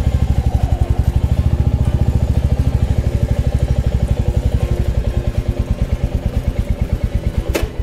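Royal Enfield motorcycle engine idling with a steady, rapid thump, a sharp click near the end, then the engine sound cuts off.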